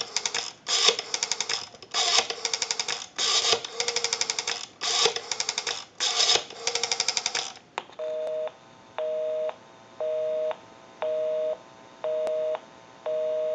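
Western Electric 202 rotary dial pulsing out a number on the phone line: quick runs of clicks, one run per digit. About eight seconds in, a North American busy signal follows, a two-tone beep going on and off about once a second.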